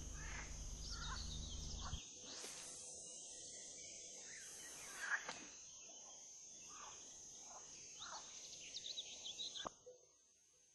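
Quiet outdoor ambience with scattered short bird chirps over a steady high-pitched tone, and one brief louder sound about five seconds in. The sound drops to near silence near the end.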